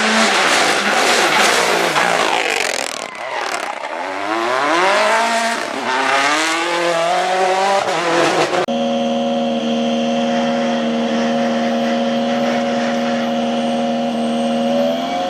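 Rally car engine at hard throttle, revs climbing and dropping through gear changes with a brief lift about three seconds in. About two-thirds of the way through it cuts off abruptly to an engine held at a steady, constant pitch, which rises slightly near the end.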